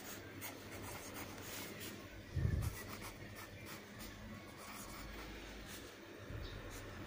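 Pen scratching on notebook paper as chemical formulas are written out, in short strokes. A dull low thump about two and a half seconds in is the loudest moment.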